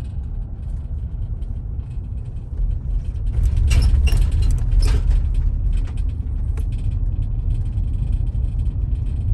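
Low, steady engine and road rumble of a pickup truck heard from inside the cab, growing louder about three seconds in, with a cluster of sharp clicks and rustles around the fourth second.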